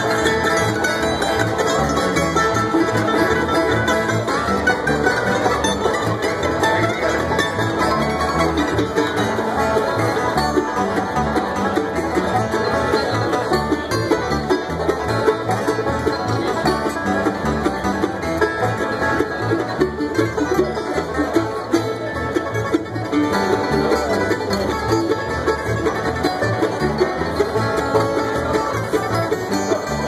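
Live acoustic bluegrass instrumental: mandolin, acoustic guitars and a plucked upright bass playing the tune together at a steady, driving pace.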